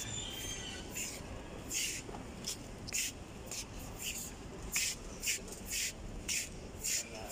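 Short scuffing and rustling sounds, about two a second and uneven, from a person walking while holding the recording phone, over a low steady hum of indoor background.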